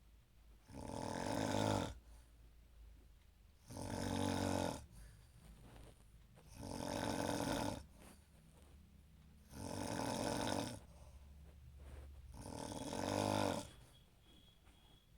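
A woman snoring loudly: five long snores about three seconds apart, each lasting just over a second.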